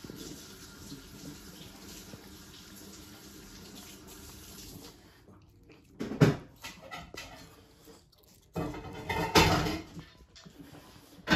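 Yorkshire terrier eating from a bowl: wet smacking and chewing sounds with knocks against the bowl. It is quieter at first and gets loud in short spells about six seconds in and again around nine to ten seconds.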